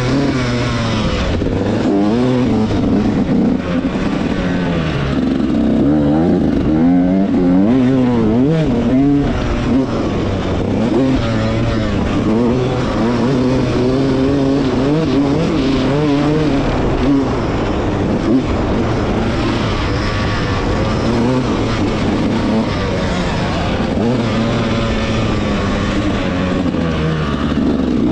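Yamaha YZ125X's 125 cc single-cylinder two-stroke engine, ridden under load, its revs repeatedly climbing and dropping as the bike accelerates and backs off.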